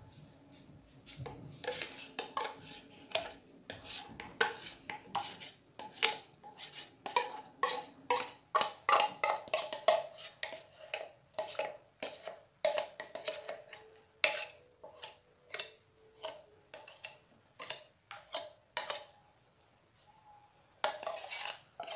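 A metal spoon clinking and scraping against an opened tin of sweetened condensed milk as it is scraped out into a steel pot. The result is a long run of irregular clicks and knocks with a ringing metallic tone, which dies away about three seconds before the end.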